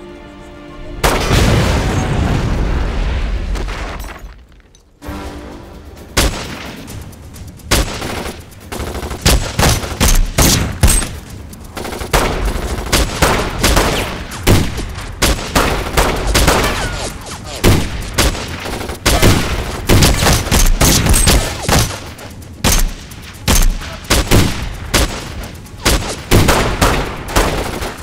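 Action-film gunfight soundtrack. A heavy boom about a second in dies away over a few seconds, then gunshots, many in rapid volleys, over background music.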